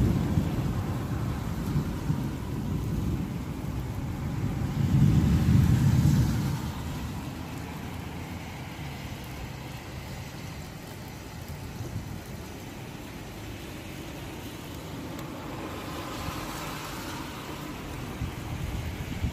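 Thunder rumbling in a rainstorm: a low rumble swells to its loudest about five seconds in and dies away by about seven seconds, leaving a steady rain hiss. A brief swelling hiss comes about sixteen seconds in.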